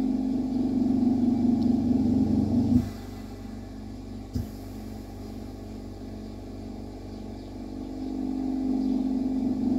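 A steady low mechanical hum from a running motor. It drops sharply with a soft thump about three seconds in, gives a small knock a second later, and swells back up near the end.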